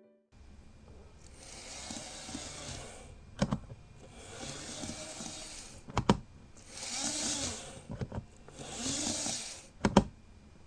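Rustling and sharp clicks from handling N gauge model train cars and their plastic packaging: four bursts of rustling, with single or double clicks in between.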